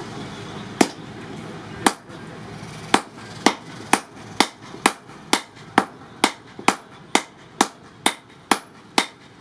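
Blacksmith and striker hammering red-hot car-axle steel on an anvil with a hand hammer and a sledgehammer: a few blows about a second apart, then a steady beat of about two sharp metal strikes a second.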